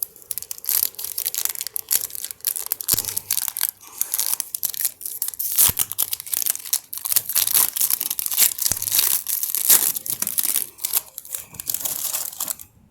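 Upper Deck MVP hockey card pack wrapper being torn open and crinkled in the hands: a dense crackling rustle that stops just before the end.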